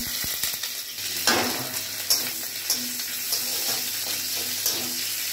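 Sliced onion sizzling steadily as it fries in hot oil in a metal kadai, with occasional clicks and scrapes of a spatula stirring it.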